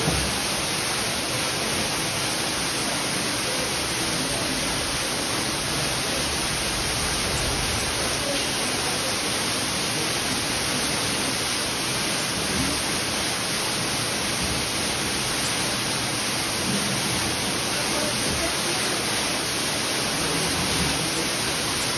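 Underground waterfall in a cave: water falling steadily down a rock face and splashing below, a constant unbroken rushing.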